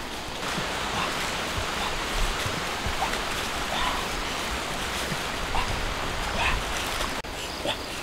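Steady rushing outdoor background noise, with short, high rising squeaks now and then; it cuts off abruptly near the end.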